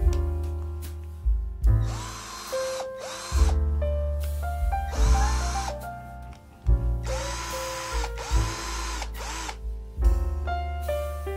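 Cordless 18V hammer drill, a Makita lookalike, run in several short trigger pulls. Each time its motor whines up to speed, holds briefly, and winds down. Background piano music plays throughout.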